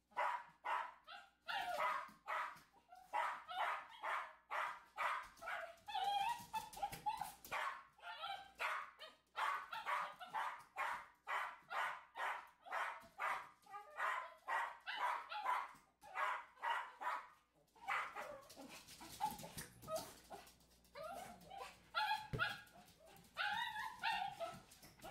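Small dog barking over and over in a quick, even run of about two to three barks a second, while it waits for a balloon to be tossed. The barks thin out and become irregular near the end.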